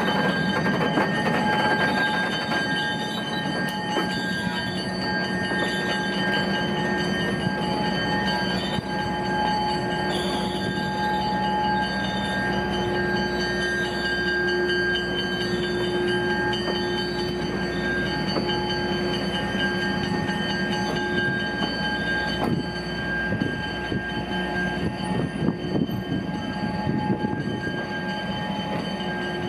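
Passenger cars of a heritage train rolling slowly past a station platform, the running gear giving off a steady high-pitched squeal of several tones over a low rumble. Clicks and knocks from the wheels grow more frequent in the last several seconds.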